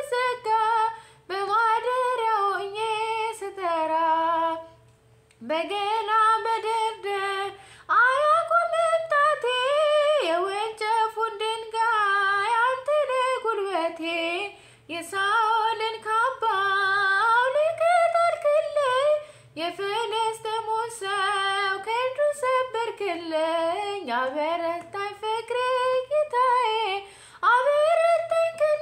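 A solo woman's voice singing an Amharic Orthodox hymn (mezmur) unaccompanied, in long held melodic phrases, with a brief breath pause about five seconds in.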